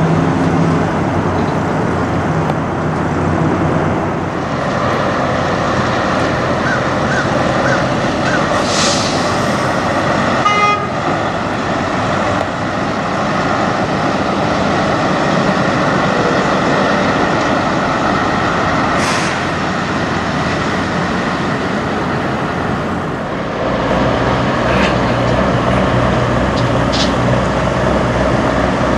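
Diesel engines of semi-trucks running as tractor-trailers move slowly past, with two short hisses about nine and nineteen seconds in. A deeper, louder engine sound comes in from about three-quarters of the way through as another tractor-trailer approaches.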